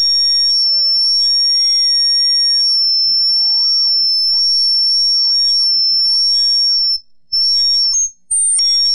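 Electronic synthesized tones: a steady, high-pitched whine with warbling tones sweeping up and down beneath it. It cuts out briefly twice near the end.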